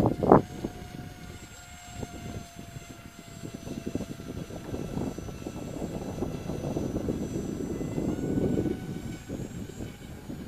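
Radio-controlled BMI Arrow 1500 model airplane flying overhead. Its motor gives a steady thin whine that steps up slightly in pitch near the end.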